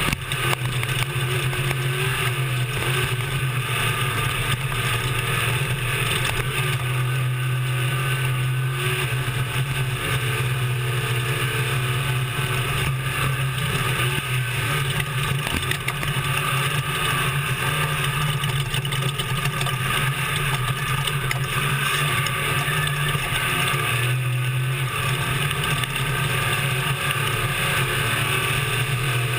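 Off-road desert race truck's engine running hard at a nearly steady pitch, heard from inside the cab under a constant rush of noise; the engine drone eases briefly a little past two-thirds of the way through, then comes back.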